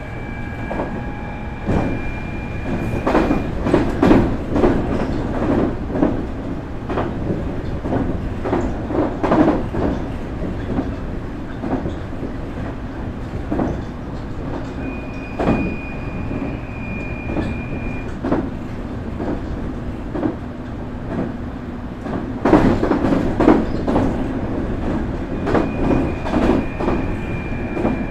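Nankai 8300-series train running, heard from inside motor car Moha 8361. Its Toyo Denki totally enclosed induction motors and Hitachi IGBT VVVF inverter give a steady high whine that comes in near the start, in the middle and near the end. Wheels knock over rail joints with a clickety-clack throughout.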